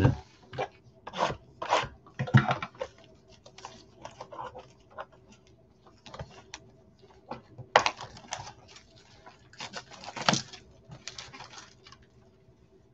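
Gloved hands opening a Donruss football blaster box: irregular cardboard rustling, scraping and tearing as the box and its packs are handled, with sharper crinkles about eight and ten seconds in.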